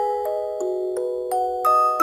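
Background music played on a music box: a slow melody of single bright plucked notes that ring on and overlap, a new note about every third of a second.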